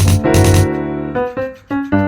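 Background music: a bouncy keyboard tune of short piano-like notes, with a loud percussive accent near the start.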